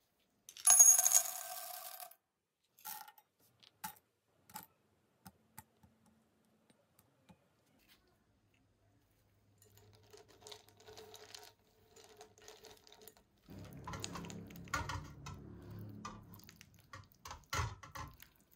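Kitchenware clinking: a glass or metal bowl knocks and rings briefly about a second in, followed by scattered light clicks. Later a silicone spatula stirs and scrapes in a glass bowl of melting chocolate and butter set over a pan of hot water, with a low hum underneath.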